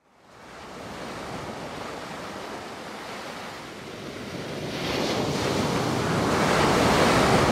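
Rushing ocean surf, fading in from silence and swelling louder about five seconds in.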